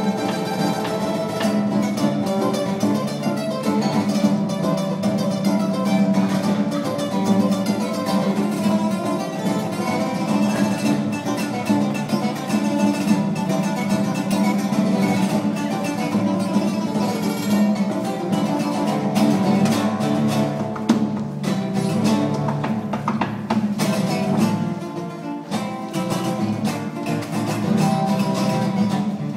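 Acoustic guitar played solo, a continuous instrumental piece of quick plucked notes and strums.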